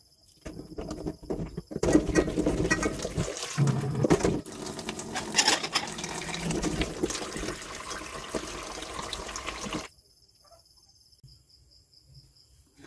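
Kitchen tap running into a stainless-steel bowl of sliced kamias in a steel sink, with a steady rushing splash. It starts about two seconds in and cuts off suddenly near the end as the tap is shut.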